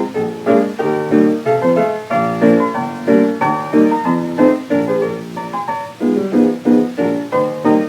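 Instrumental piano break from a 1926 78 rpm jazz record: a piano plays the tune in a steady run of quick struck notes, with no singing. The sound is thin and narrow, as on an old 78 transfer.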